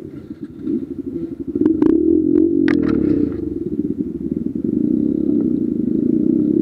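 Dirt bike engine running at low revs, louder from about two seconds in, with several sharp knocks and clatter between about one and a half and three seconds in.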